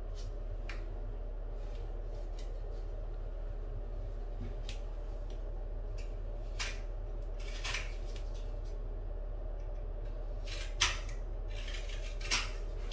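Wooden molding being handled and fitted against a door frame: sparse small clicks and a few sharp knocks, over a steady low hum.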